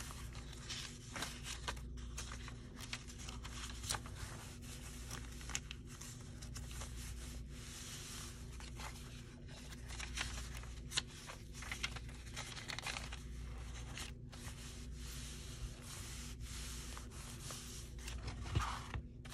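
Paper pages of a handmade junk journal rustling and crinkling as they are handled and shifted, with many small taps and scrapes.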